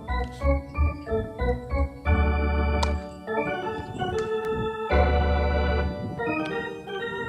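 Music played on an organ-like keyboard: quick short notes over a pulsing bass for about two seconds, then long held chords.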